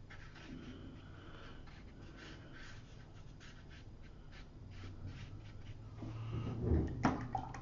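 Soft, repeated strokes of a watercolour brush across watercolour paper as a wash is laid in. Near the end a louder, lower sound comes in.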